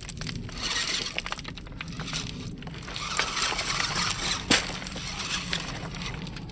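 Rounded beach pebbles clinking and crunching against one another in a dense, irregular clatter, with one sharper knock about four and a half seconds in.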